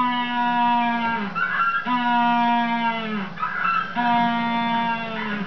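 Banded penguin giving its braying ecstatic display call with its head thrown back: three long, steady-pitched brays, each about a second and a half, with a short rougher sound between them.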